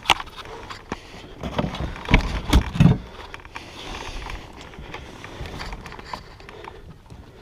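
Irregular knocks and clatter in a fishing kayak as a large bass is landed and handled, with a cluster of heavier thumps about two to three seconds in.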